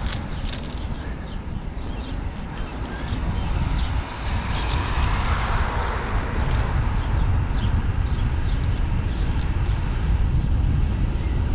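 Wind rush and rumble on a bike-mounted action camera's microphone with tyre noise as the bicycle rolls downhill, growing a little louder about four seconds in.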